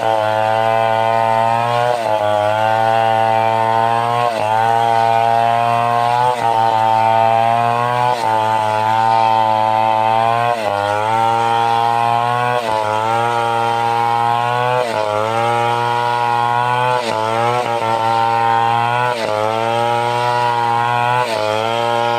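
Stihl 070 large two-stroke chainsaw running at high revs while cutting timber. Its engine note dips sharply and climbs back about every two seconds as it bogs under the load of the cut and recovers.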